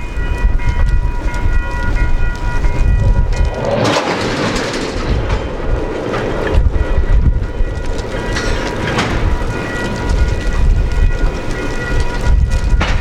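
Diesel freight train running past: a heavy low engine rumble under a few faint steady high tones. Wheels clatter over the rail about four seconds in and again near the middle.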